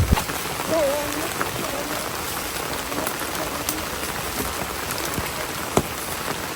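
Steady rain falling, with scattered drops ticking, and a low thump right at the start.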